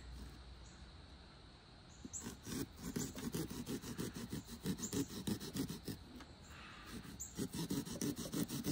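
Small serrated pumpkin-carving saw sawing through pumpkin rind and flesh in quick short strokes, several a second. The strokes ease off briefly about a second in and again about two-thirds of the way through.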